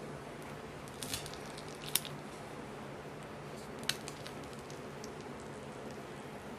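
Whipped cream squelching as a piping bag is squeezed hard, with a few short sharp crackles about one, two and four seconds in. The cream is being forced through a piping tip that Oreo crumbs are partly clogging.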